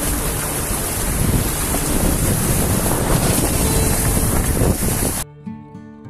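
Car wading through a shallow river ford: a loud, steady rush of water sloshing around the vehicle, mixed with wind noise on the microphone. About five seconds in it cuts off suddenly, giving way to acoustic guitar music.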